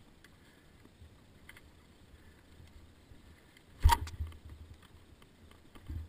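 One loud, sharp knock about four seconds in, followed by low thuds and rumbling as the dirt bike is handled among rocks. No engine is heard running.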